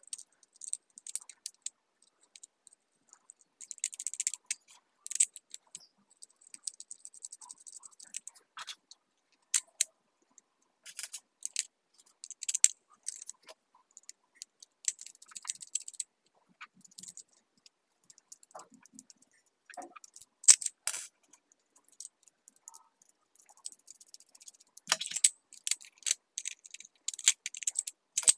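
Irregular clicks, taps, rattles and scrapes of plastic switch-board parts being handled as a 5-pin and a 2-pin socket are fitted into a PVC modular board.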